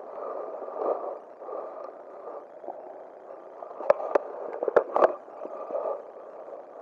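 Rustling handling noise from the angler's jacket and hands against a chest-mounted camera as fly line is hauled in by hand. A few sharp clicks or taps come about four and five seconds in.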